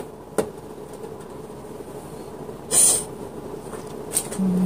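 Clear acrylic hamster-cage parts being handled during assembly: a few sharp plastic clicks and one louder short rustling clatter about three seconds in, over a steady low hum, with a short low buzz near the end.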